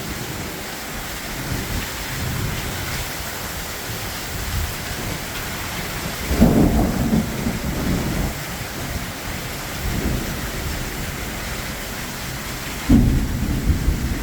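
Heavy rain pouring steadily in a severe thunderstorm, with two deep rumbles, one about six seconds in and another near the end.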